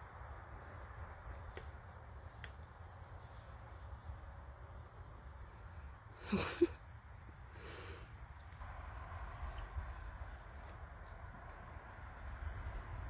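Faint outdoor ambience: insects chirping steadily, over a low rumble. About halfway through, a single short sound rises in pitch.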